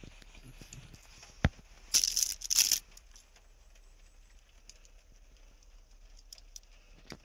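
Plastic sheeting draped over a car seat crinkling in two quick rustles about two seconds in, just after a single sharp click.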